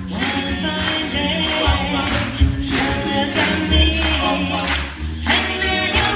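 A cappella vocal group singing in close harmony over a low bass part.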